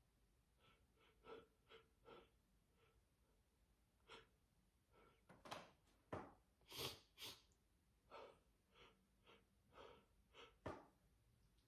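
A person's quiet sniffs and gasping breaths: a string of short, soft breaths, the loudest two a little past the middle.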